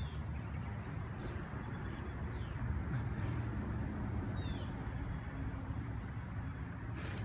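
A steady low rumble of outdoor background noise, with a few short, high bird chirps scattered through it.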